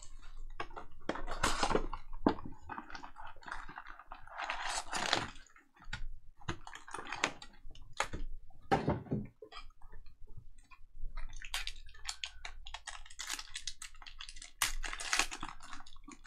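Cellophane shrink wrap crinkling and crackling as it is torn off a trading-card hobby box. Then foil card packs rustle as they are handled and one is torn open. The sound comes in irregular bursts, with sharp clicks between them.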